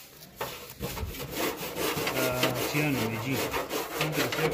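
A hand brush scrubbing engine degreaser over a car's wet plastic wiper cowl, in a quick run of repeated scrubbing strokes that grows louder about a second in.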